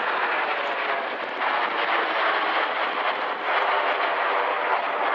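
Steady jet noise from a nine-ship formation of Red Arrows BAE Hawk jets flying overhead.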